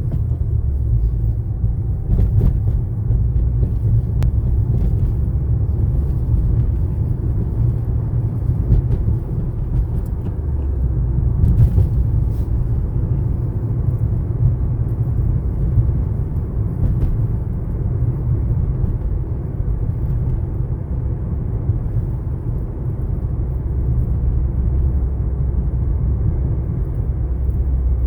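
2016 Subaru WRX on the move, a steady low road-and-drivetrain rumble with a few sharp clicks at irregular moments, the clicking noise blamed on its BC Racing coilover suspension.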